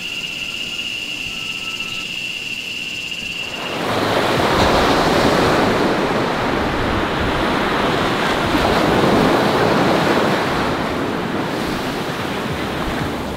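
Surf breaking and washing on a beach, a loud, even rush that comes in about four seconds in and swells and eases. Before it, a steady high insect drone over a quiet forest background.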